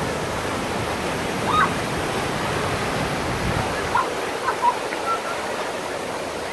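Water rushing down a concrete tube slide, a steady churning rush of white water.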